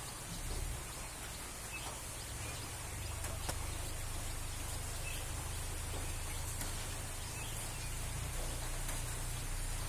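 Steady outdoor background noise: an even hiss with a low rumble underneath and a few faint clicks, rising a little in level about three seconds in.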